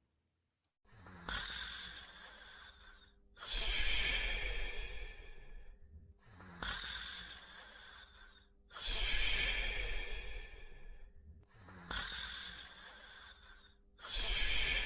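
Snoring in slow, even cycles, starting about a second in. Three cycles about five seconds apart, each a shorter sound followed by a louder, longer one.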